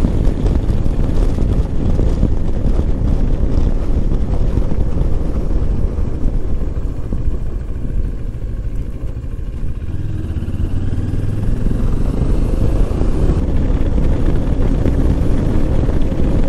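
Moto Morini X-Cape 650's parallel-twin engine running at road speed, with wind noise on the onboard microphone. Both ease off for a few seconds around the middle, then the engine note rises as the bike picks up speed again.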